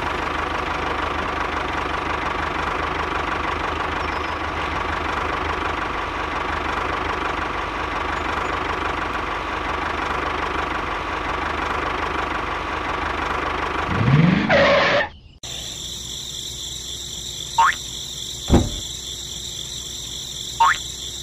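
Miniature model tractor's engine running steadily with a steady whine in it, cutting off about fifteen seconds in after a brief rising-then-falling sweep. Afterwards a quieter steady high chirring like insects, with a few short chirps and light knocks.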